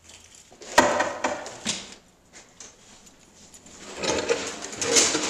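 Handling noise on a body-worn camera: a sharp knock about a second in, then rustling and scuffing as the wearer moves, growing louder near the end.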